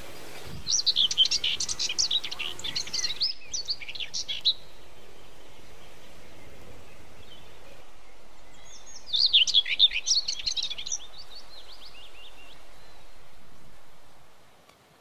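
A songbird singing in two bouts of rapid, high chirping notes, the first about a second in and the second about nine seconds in, over a steady background hiss that fades away near the end.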